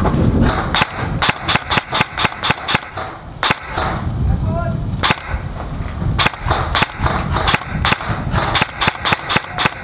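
Airsoft guns firing: quick strings of sharp cracks, about four to five shots a second, with a short lull about four seconds in before the firing picks up again.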